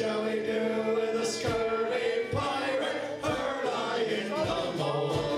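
Live acoustic band playing, with several voices singing together over acoustic guitar, mandolin and drum.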